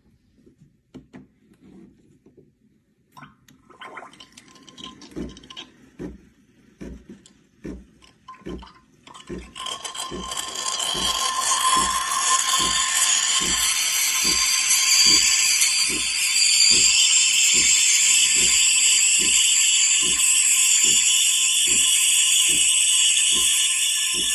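Espresso machine steam wand hissing steadily, with the pump pulsing about every three-quarters of a second underneath. The pulsing starts alone and the loud steam hiss comes in about ten seconds in.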